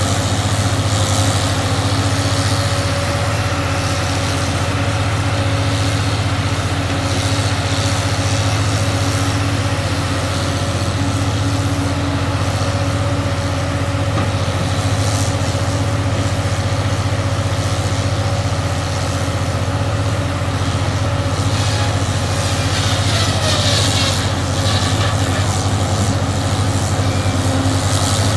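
Hood 24000 slasher loader's diesel engine running steadily under hydraulic load as it swings and slashes aspen logs, a constant low drone with a faint steady whine above it. A few brief noisier stretches of wood handling break in, the strongest about three-quarters of the way through.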